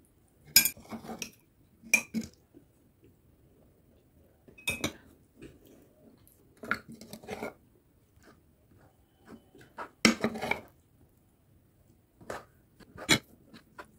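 Cutlery clinking and scraping against dishes in short clattering bursts, about seven times, with quiet between them.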